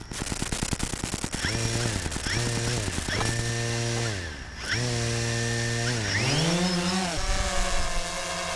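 DJI Phantom 3 Standard quadcopter's electric motors and propellers: rapid ticking as the motors start, then the motor whine rising and falling in pitch several times as the throttle is worked, settling into a steadier, higher whine near the end. The freshly rebuilt drone's motors are running normally.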